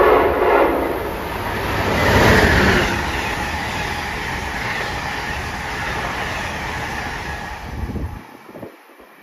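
Amtrak electric-hauled passenger train of stainless-steel Amfleet cars passing close by a station platform. A sudden rush as the locomotive goes by, loudest about two seconds in, then steady wheel and air noise from the cars, which drops off sharply near the end as the last car passes.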